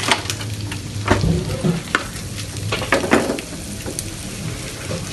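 Pieces of chicken tail sizzling in a frying pan while a wooden spatula stirs them, scraping and knocking against the pan a few times.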